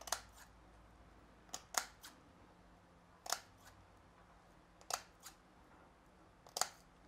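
Scissors snipping into the edge of a rolled piece of insect window screen, cutting it into flaps: short sharp snips about every one to two seconds, some in quick pairs.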